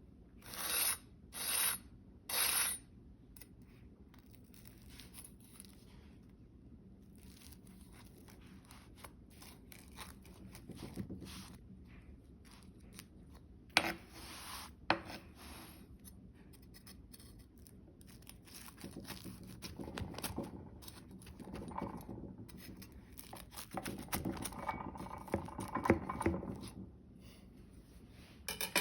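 Kitchen food-preparation sounds: three short scraping strokes at the start, two sharp knocks in the middle, then utensils rubbing and clattering against a bowl or dish.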